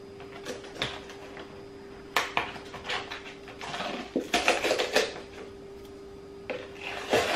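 A plastic protein-powder tub being opened by hand: several sharp clicks and knocks, then crinkling as the foil seal is pulled off, over a faint steady hum.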